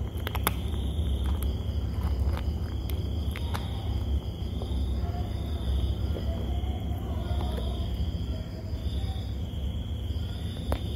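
A cat chewing dry kibble, a few sharp crunches in the first few seconds, over a steady low hum and the continuous high, pulsing chirp of insects.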